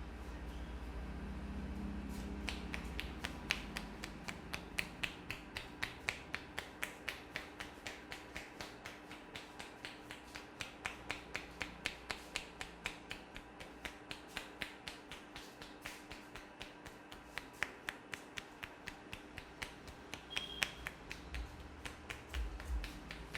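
A barber's hands striking in a fast, even percussive rhythm during a head massage, sharp claps about three a second, starting about two seconds in.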